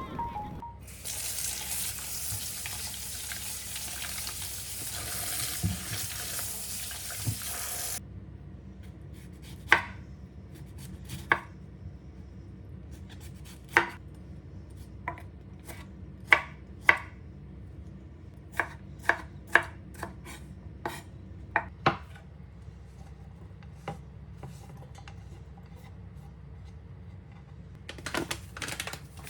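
Kitchen sounds: a steady hiss for about seven seconds, then a knife chopping on a cutting board, with irregular sharp knocks spaced about a second apart.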